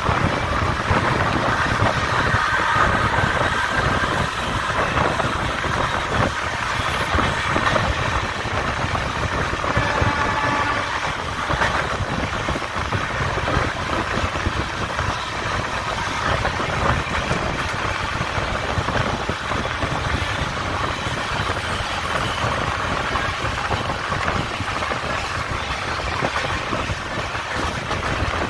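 Udhampur Express train running: a steady noise of wheels and track, with a faint high whine that comes and goes.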